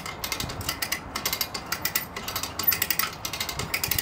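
Hand come-along ratcheting: its pawl makes rapid, repeated clicks as the handle is worked to winch the boat's hull up onto the trailer under load.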